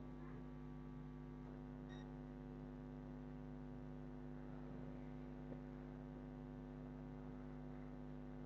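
Steady, faint electrical mains hum with a stack of even overtones, picked up in the recording chain. A single faint click comes about five and a half seconds in.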